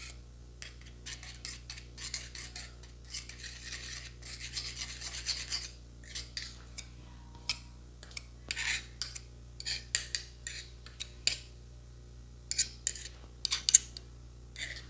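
Close-up rubbing and scraping of hands on skin during a barber's massage, in short scratchy strokes with a longer stretch of steady rubbing a few seconds in. Several sharp brief scratches near the end.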